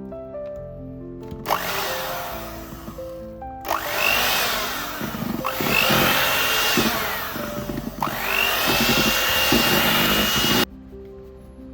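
Electric hand mixer running in several bursts, its motor whine rising each time it speeds up, then cutting off suddenly near the end. Background music plays underneath.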